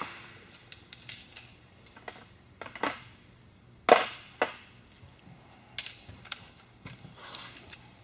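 A torque wrench and socket working the fasteners of an Aerovee engine short block, set to 15 foot-pounds: a few separate sharp metallic clicks, the loudest about four seconds in.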